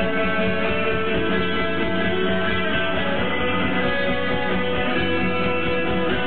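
Live rock band playing with no singing: layered electric guitars holding ringing chords over bass and a steady drum beat, heard from the crowd.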